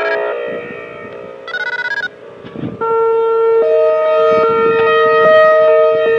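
Whelen Vortex R4 outdoor warning siren sounding a steady tone during a test. The tone fades about a second in, and a short rapid pulsing tone comes through. Then the siren returns sharply, and a second pitch joins it to hold a steady two-note chord.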